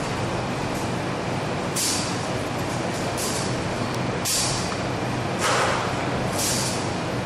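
Steady low engine-like hum, with short bursts of high hissing about every second or so, the one near the middle reaching lower and lasting longest.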